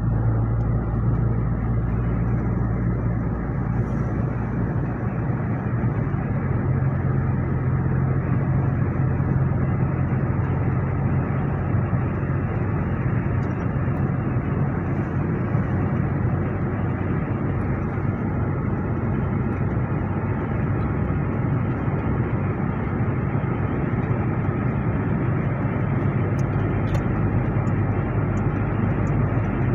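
Toyota Revo pickup cruising on a motorway: a steady engine drone under constant tyre and road noise.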